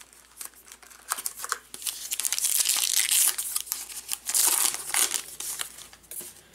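Foil wrapper of a Topps Archives baseball card pack crinkling and tearing as the pack is opened. The crackling picks up about two seconds in and is loudest through the middle.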